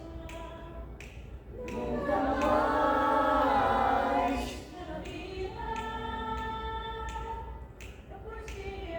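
A group of voices singing long held notes without accompaniment, swelling loudest about two seconds in and easing off near the middle, then a quieter sustained chord.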